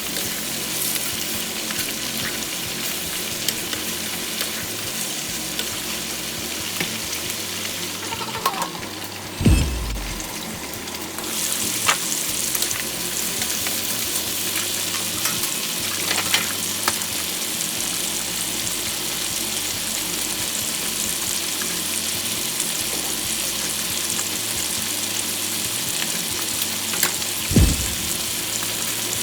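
Food sizzling steadily as it fries in a pan while being stirred, with a few sharp clicks of the utensil against the pan. Two short low thumps, one about nine seconds in and one near the end, are the loudest sounds, and the sizzle dies down for a moment after the first.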